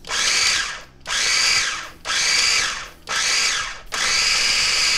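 Small electric food chopper pulsed to chop basil leaves and garlic: four short bursts of about a second each, the motor whine rising and falling with each one, then a longer run starting near the end.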